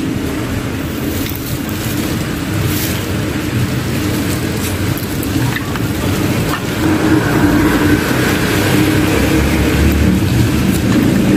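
Black plastic garbage bag rustling as handfuls of decayed burial cloth and remains are dropped into it, over a steady low rumble.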